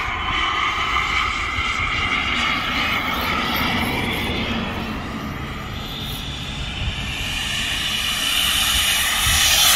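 K45G4 model jet turbine in a Freewing F22 Raptor RC jet whining steadily as the plane flies overhead. The sound fades a little midway, then grows louder over the last few seconds as the jet comes closer.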